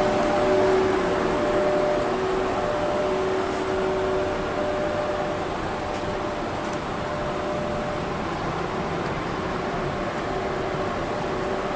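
Steady hum and hiss from the onboard equipment of a standing 24-series sleeper train, with two faint held tones in it.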